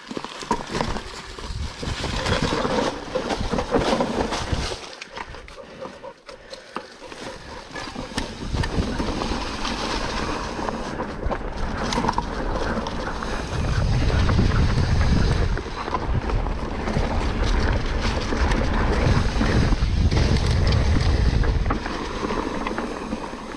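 Wind rushing over the microphone of an action camera on a mountain bike riding down a dirt trail, with knocks and rattles from the bike over rough ground. The wind buffeting is heaviest from about halfway through.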